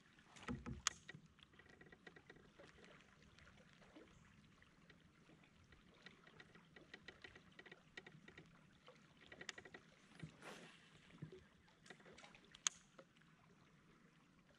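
Near silence, with faint clicks and small taps from a spinning rod and reel being worked from a kayak. The sharpest click comes about a second in and another near the end.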